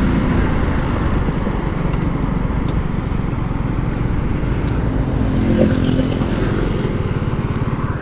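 Motorcycle engine running steadily while riding, with wind rumble on the microphone.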